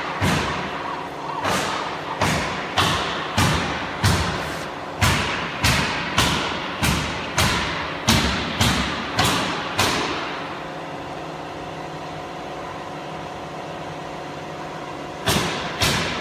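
Sharp mechanical knocks repeating about twice a second over a steady machine hum. The knocks stop for about five seconds, leaving the hum alone, then start again near the end.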